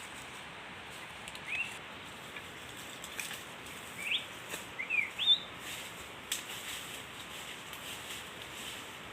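A small bird chirping: about six short, rising chirps, bunched in the first half, over a steady outdoor hiss.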